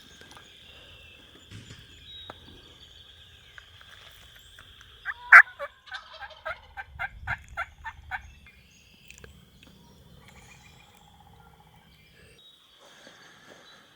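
Wild turkey calling: a series of about ten loud, separate notes over some three seconds, the first the loudest.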